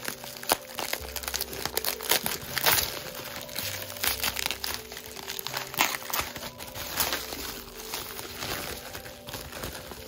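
Plastic bubble wrap crinkling and rustling as it is unwrapped by hand from a package, with irregular crackles throughout.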